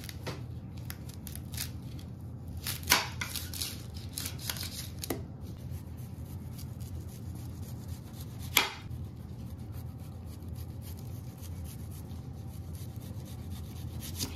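Kitchen knife slicing a raw onion into rings on a granite countertop: scattered crisp cutting clicks, with two louder sharp clicks about three and eight and a half seconds in, over a low steady hum.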